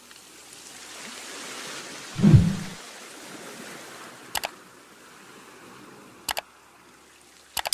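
Sound effects for a like-and-subscribe animation. A low whoosh comes about two seconds in. Then there is a quick double mouse click twice, a few seconds apart, and a final double click just as a bell chime starts at the very end.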